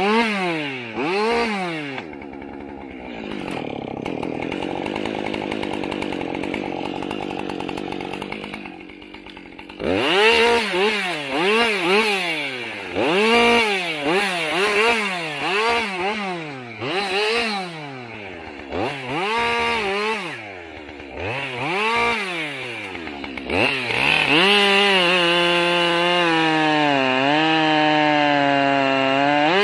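Two-stroke chainsaw revving up and down over and over. For several seconds early on it runs lower and steadier. Near the end it holds at full speed, with small dips in pitch.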